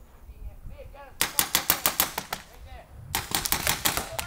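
Paintball markers firing in two rapid bursts of about a second each, around nine shots a second, the first a little over a second in and the second near the end.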